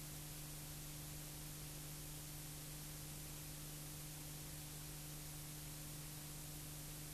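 Steady hiss with a low electrical hum and no other sound: the empty noise floor of a silent film transfer.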